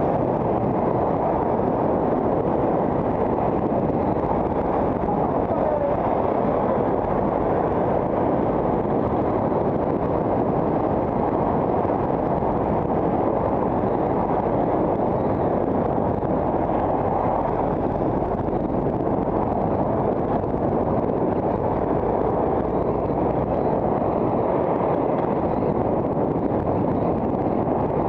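Steady wind rush on the microphone of a camera riding on a moving bicycle, with road and traffic noise underneath.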